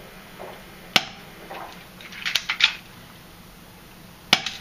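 Taurus PT92 spring airsoft pistol firing: two sharp shots, one about a second in and one near the end. Between them comes a quick run of plastic clacks as the slide is racked to cock the spring for the next shot.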